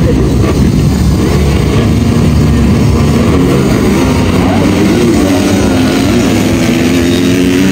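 Several motocross motorcycle engines running and revving together, a loud dense drone with pitches that rise and fall.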